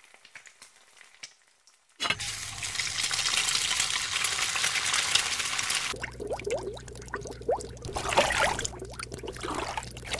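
A loud steady hiss for about four seconds, then water bubbling: many short rising blips over a low hum.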